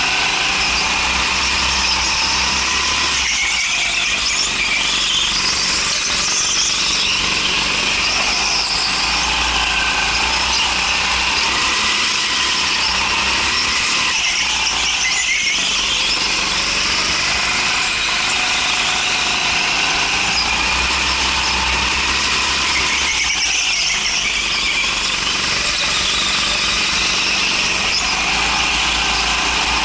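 Rental go-kart's engine running at speed, heard from the driver's seat, with a high squeal throughout, easing briefly about three and a half, fifteen and twenty-three seconds in.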